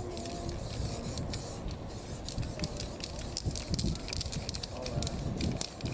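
Aerosol spray-paint can hissing in many short spurts, over a steady low background rumble.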